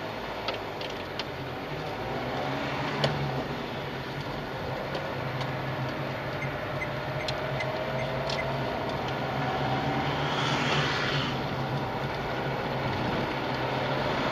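Car engine and tyre noise heard from inside the cabin while driving, the engine note climbing slowly as the car gathers speed. A few small clicks or rattles, and a brief swell of road noise about ten seconds in.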